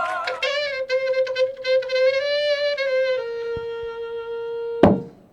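Music from a Huancayo orchestra: a wind instrument holds one long wavering note, then a steady held note. The note is cut by a sharp click shortly before the end, followed by a moment of quiet.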